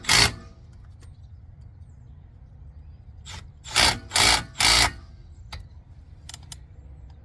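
Impact wrench run in short bursts, one right at the start and then three quick ones about four seconds in, tightening the 12 mm brake caliper bolts.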